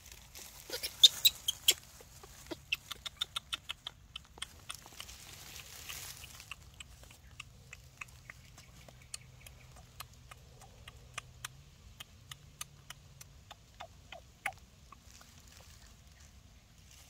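Light, irregular clicking and crackling: a loud cluster of clicks about a second in, a fast even run of about five a second shortly after, then scattered single ticks.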